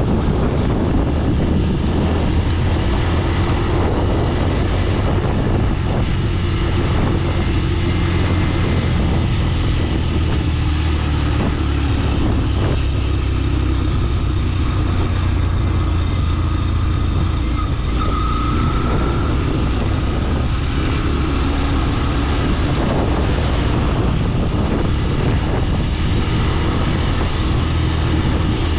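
Steady engine and road noise of a vehicle travelling along a highway, a constant low rumble.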